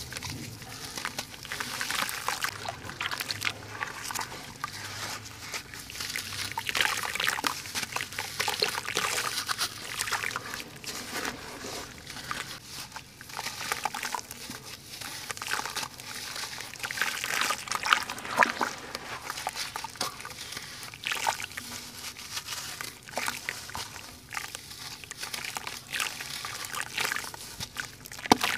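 Wet sand-cement lumps crumbling in hands in a basin of water: gritty crackling as the lumps break, with sloshing and water trickling and pouring off them, in an irregular, unbroken run.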